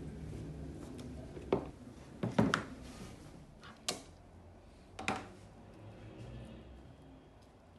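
About five sharp clicks and knocks over a few seconds as plastic one-handed bar clamps are released from a metal cylinder and set down on the workbench, over a low hum that fades away.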